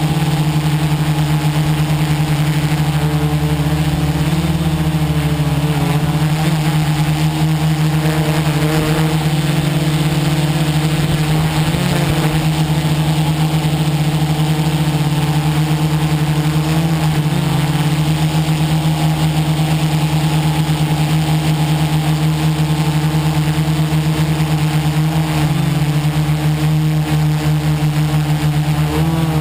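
VC 450 quadcopter's electric motors and propellers running in flight, heard from a camera on the frame: a loud, steady hum with several layered tones that shift slightly in pitch a few times.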